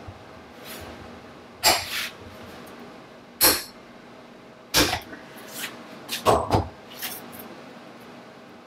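Ratchet torque wrench clicking in short rasps, roughly one a second and some in pairs, as it turns the crank pin nut on a motorcycle flywheel assembly held in a vise. The nut is being tightened a little further to line up its lock holes.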